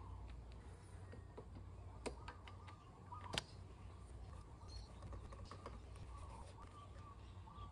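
Light clicks and taps of a Phillips screwdriver and screw against a scooter's plastic body panel as the screw is fitted and driven in, the sharpest click about three and a half seconds in. A bird calls faintly in the background.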